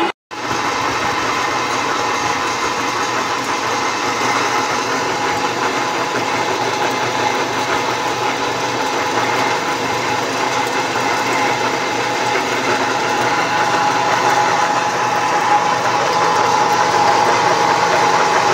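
Small electric-motor-driven flat-die feed pellet mill running steadily under load while pressing feed mash into pellets. It gives a constant whine over dense mechanical noise, after a momentary gap just after the start.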